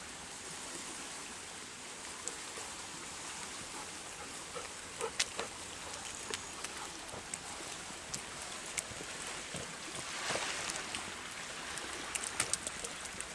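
Steady watery hiss of wet woodland after rain, with scattered small clicks and splashes of footsteps on a wet road; the hiss swells briefly about ten seconds in.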